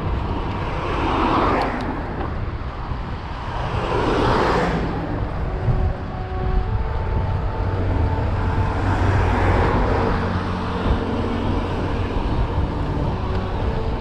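Cars passing on the road alongside, heard as three swells of engine and tyre noise about a second, four seconds and nine and a half seconds in. Under them runs a steady low rumble of wind on the microphone of the moving bicycle.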